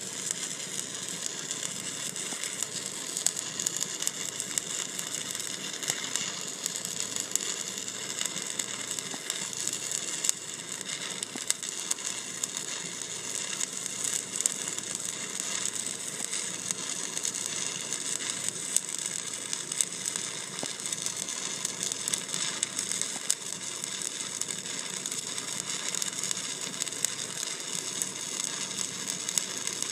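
Stick-welding arc burning a 1/8-inch 7018 electrode at about 120 amps on a vertical pass, with a steady, dense crackle.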